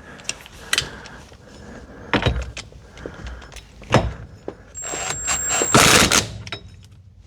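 Cordless impact gun running for about a second and a half, its motor whining as it drives the steering-wheel hub nut onto the steering shaft, loudest near the end as the nut tightens. Before it, a few separate clicks and knocks of tools being handled.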